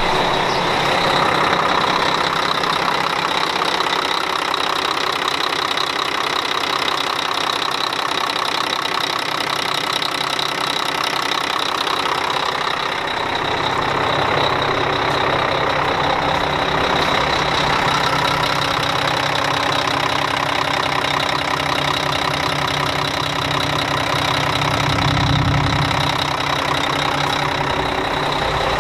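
Volvo D12 inline-six diesel of a semi truck idling steadily, warming up after a cold start. A deeper low rumble comes in about halfway through.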